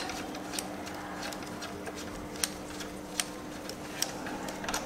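Faint, scattered metallic clicks and taps of hands and tools working at a motorcycle's front brake caliper, about six light ticks spaced under a second apart, over a steady low hum.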